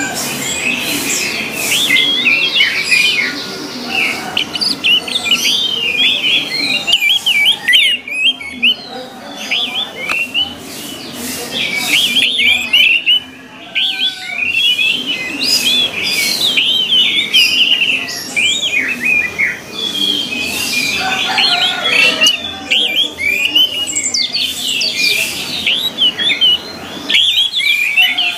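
Orange-headed thrush song: a continuous stream of fast, varied phrases of rising and falling whistled notes. It breaks off briefly about a quarter of the way in and again near the middle.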